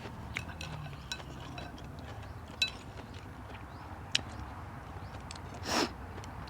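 Eating at the table: utensils clicking and clinking against a bowl several times, with one short, louder eating noise near the end.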